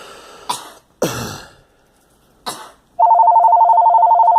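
A girl coughs a few times in short bursts. About three seconds in, a telephone starts ringing: a loud, fast-trilling two-tone ring that is the loudest sound here.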